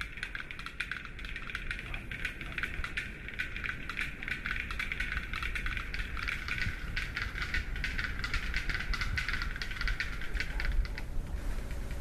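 Fast, dry clicking from a black-billed capercaillie, a dense run of ticks that thins out and fades near the end.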